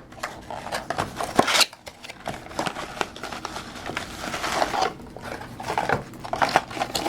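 Packaging being handled as a sunglasses box is opened: crinkling and rustling of paper and plastic, with many small clicks and taps.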